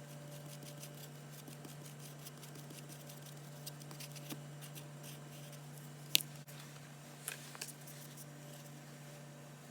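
Faint scraping and light ticks of a small tool working a dab of JB Weld two-part epoxy, with a sharp click about six seconds in and two softer ones soon after. A steady low hum runs underneath.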